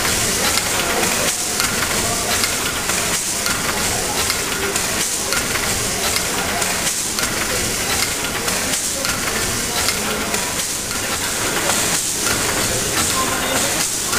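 Triple-expansion steam pumping engine running slowly: a steady hiss of steam and mechanical clatter, with a regular beat about every two seconds as the engine turns.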